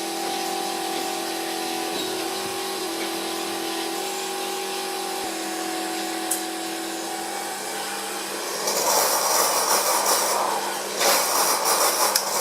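Super-automatic coffee machine rinsing its brewing unit and milk foamer with fresh water. A pump hums steadily for the first several seconds. Then, about two-thirds of the way in, loud hissing spurts of water and steam begin, with a brief break near the end.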